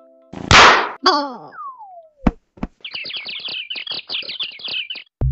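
Talking Tom Cat app's cartoon knockout sound effects: a sharp smack, Tom's short falling cry, a falling whistle and a couple of thuds. Then about two seconds of rapid high tweeting chirps, the dizzy sound as he lies stunned.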